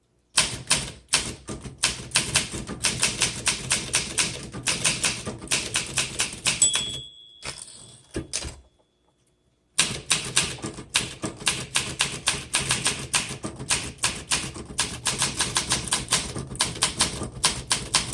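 Typing on a 1963 Olympia SM7 manual portable typewriter: a fast run of typebar strikes. Partway through, the margin bell rings once near the end of a line, the typing stops for a couple of seconds, then the keystrokes start again.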